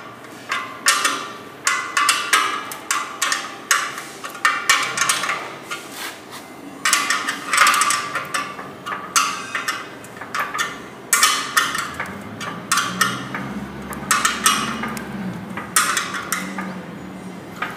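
Wrench and bolts clinking against the thin steel drum of a cement mixer as the blade bolts are tightened: irregular sharp metallic clinks, a few a second, each with a brief ring.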